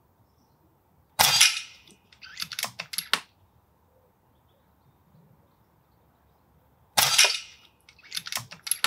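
Daystate Huntsman Revere Safari Edition .177 pre-charged pneumatic air rifle fired twice, about six seconds apart. About a second after each shot comes a quick run of clicks as the side lever is worked to cock the rifle and chamber the next pellet.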